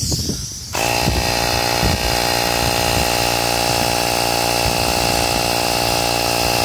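Ryobi tire inflator's compressor switching on about a second in and running steadily, pumping air into the Nerf mortar's pressure tank toward 50 PSI.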